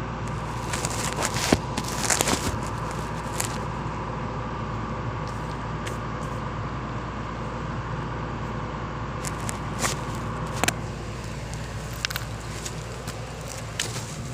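Sany SY210 excavator's engine running steadily with a faint hydraulic whine, over scattered sharp cracks and knocks of rock as the breaker works, loudest a couple of seconds in and again about ten seconds in.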